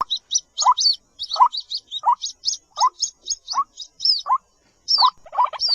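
White-breasted waterhen calling: a short rising note repeats about every 0.7 s, over a quick series of high chirps. The calls grow denser about five seconds in.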